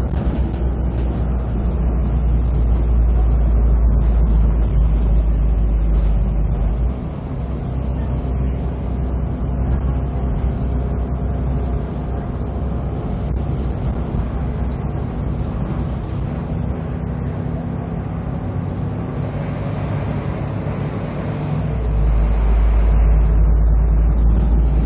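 Volvo B340M bus's DH12E Euro 5 diesel engine running, with a deep low rumble that eases about seven seconds in and returns strongly near the end. A faint high whistle comes in briefly about twenty seconds in.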